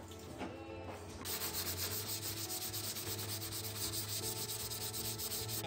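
Hand sanding of cured body filler on a Toyota Camry body panel with sandpaper: rapid, even back-and-forth scraping strokes that start about a second in and keep a steady pace.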